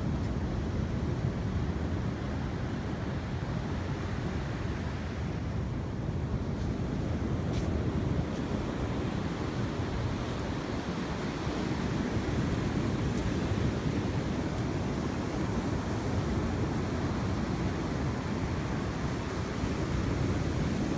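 Sea surf washing on the shore, mixed with wind buffeting the microphone: a steady low rushing that swells and eases slowly.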